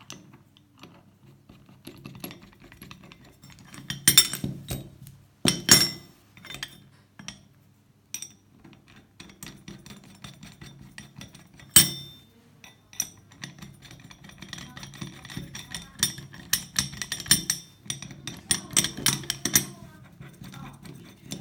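Small metal clicks and knocks of bolts and adapter pieces being handled and fitted against an aluminium 44-tooth sprocket. A few sharper knocks come about four, six and twelve seconds in, and a busy run of small clicks near the end.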